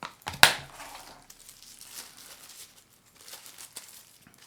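Unboxing handling: plastic packaging crinkling and rustling, with one sharp, loud crackle about half a second in, then lighter rustles and small clicks.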